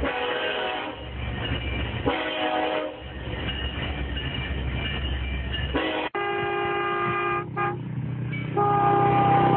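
Train horn sounding over the low rumble of a moving train: two short blasts near the start, then after a sudden break about six seconds in, long held blasts.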